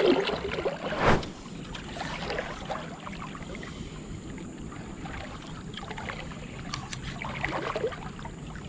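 Water sloshing and splashing around a wader's legs in a shallow river, with one sharp thump about a second in.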